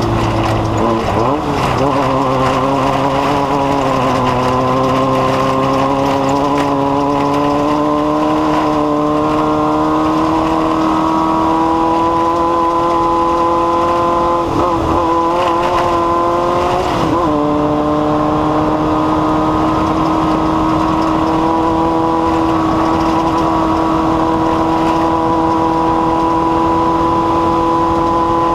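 Off-road race vehicle's engine running hard at high, fairly steady revs, its pitch drifting slowly. The revs dip briefly about a second in, and again about two-thirds of the way through before climbing back.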